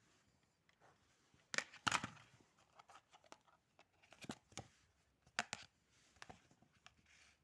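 Small plastic toy pieces being handled, making a string of irregular sharp clicks and knocks. The loudest are a pair about two seconds in and another pair about five and a half seconds in.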